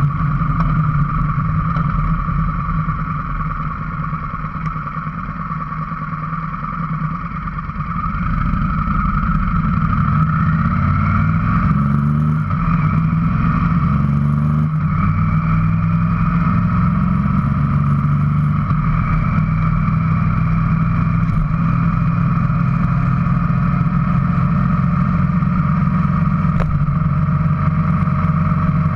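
Motorcycle engine running while riding, easing off a few seconds in, then rising in pitch in steps as it pulls up through the gears and settling to a steady cruise.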